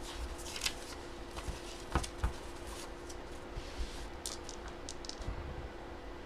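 Scattered light clicks and short rustles of desk handling over a steady electrical hum.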